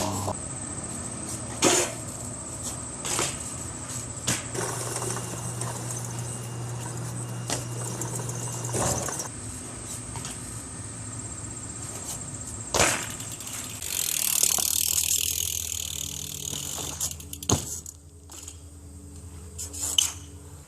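BMX bike riding: several sharp knocks and clanks from landings and metal contacts, spread through the clip over a steady low hum, with a couple of seconds of hiss about two-thirds of the way in.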